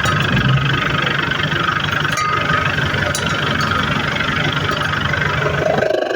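Mitsubishi L300 engine idling steadily through an aftermarket "Serigala" racing exhaust, whose muffler is tuned for a deep "ngorok basah" (wet growl) tone. Near the end the low rumble drops away and the sound changes.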